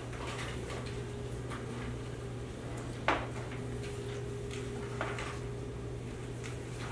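Meeting-room background: a steady low hum with scattered light clicks and knocks of papers and small objects handled on tables, the sharpest knock about three seconds in.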